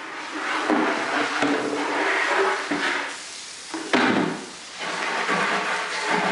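Water from a garden hose running into a plastic bucket and splashing out onto pavement, with a hollow knock about four seconds in as the bucket is set down.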